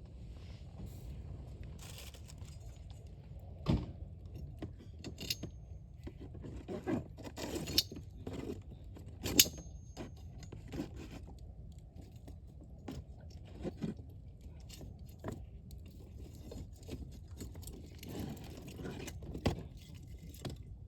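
Wood campfire crackling, with irregular sharp pops; the loudest pops come about four seconds in and about nine seconds in, over a low steady rumble.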